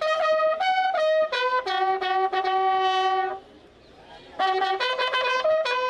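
Military bugles sounding a ceremonial call for the dead: a few notes leading into one long held note, a pause of about a second, then a quicker run of notes.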